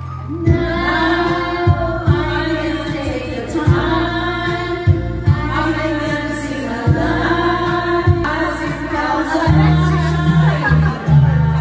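Karaoke: a woman singing into a microphone over a backing track with a steady beat, with other voices joining in.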